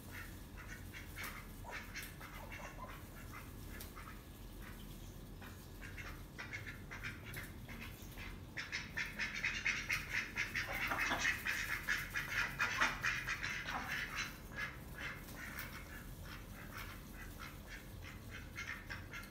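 Domestic ducks quacking: soft scattered calls at first, then a louder run of rapid, chattering quacks for about five seconds past the middle, fading back to occasional soft calls.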